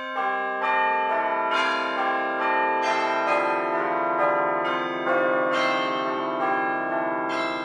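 A peal of bells: a new bell tone is struck about twice a second, and each one keeps ringing under the next.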